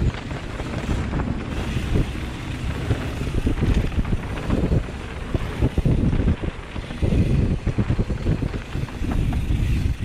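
Wind buffeting a helmet-mounted camera's microphone during a fast mountain-bike descent on a dirt trail, with tyres rumbling over the dirt and frequent knocks and rattles from the bike over bumps.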